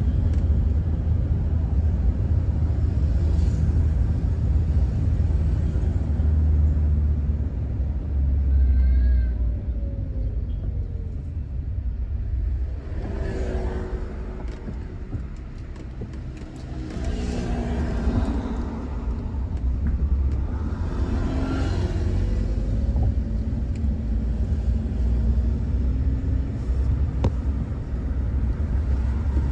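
Steady low road and engine rumble inside a moving car's cabin. Through the middle, a few passing vehicles' engines rise and fall over it.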